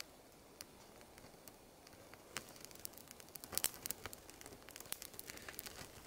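Crinkling and rustling of food packaging being handled: irregular crackly clicks that start about two seconds in and grow busier.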